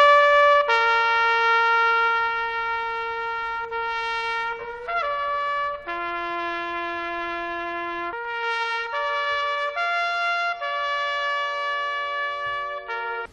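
A trumpet plays a slow ceremonial call of long held notes, each lasting a second or more before moving to the next pitch.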